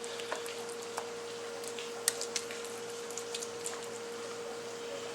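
Faint, scattered soft clicks and taps of a utensil putting ricotta cheese into a lasagna dish, over a steady hum.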